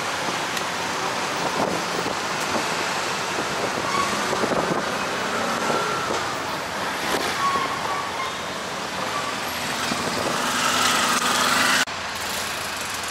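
Steady traffic and engine noise heard from an open tuk-tuk moving through busy city streets. The sound drops abruptly near the end.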